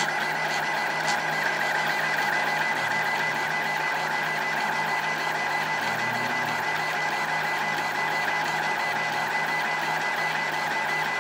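Celeritas high-speed 3D printer running a fast print: its stepper motors and print head make a steady whine of several pitches with a fast, even pulsing.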